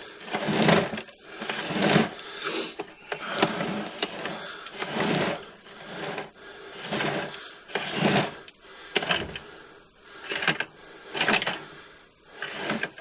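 Sewer inspection camera's push cable being fed by hand into a cleanout and down the main line: irregular scraping, clattering pulses about once a second, with a few sharp clicks.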